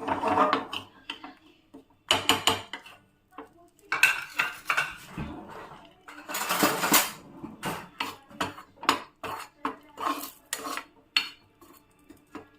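Metal spoon scraping and clinking against a frying pan, stirring gram flour as it dry-roasts. There are a few longer scraping strokes at first, then quicker short clinks from about two-thirds of the way through.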